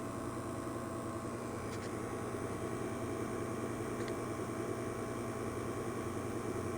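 Refrigeration vacuum pump running steadily, evacuating an air-conditioning line set, with a constant hum; the vacuum reading has stalled out.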